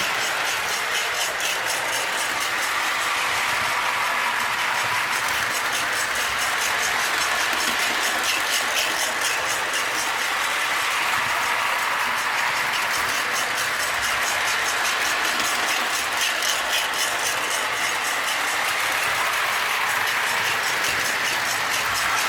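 Lionel O-27 toy steam locomotive and freight cars running steadily on three-rail track: an even whirring running noise with fast, regular clicking from the wheels and track.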